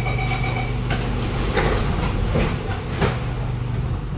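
Sliding doors of a Kawasaki Nippon Sharyo C751B metro car and the platform screen doors closing: a two-tone door-closing chime stops within the first second, then three knocks as the doors shut, the last and loudest about three seconds in. A steady low hum from the stationary train runs underneath.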